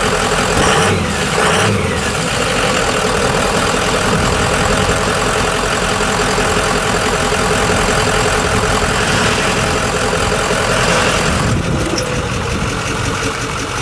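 2003 Ford F-250's 6.0-liter V8 turbo-diesel engine running at a steady idle.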